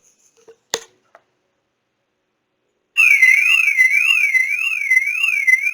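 Car alarm sound effect: an electronic warbling siren tone sweeping rapidly up and down, about two sweeps a second, starting about three seconds in. A single click comes before it, about a second in.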